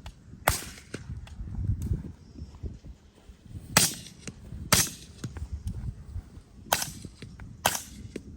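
Suppressed rifle shots, fired in pairs about a second apart by shooters comparing Surefire and Q suppressors: one shot just after the start, then two pairs, five sharp reports in all.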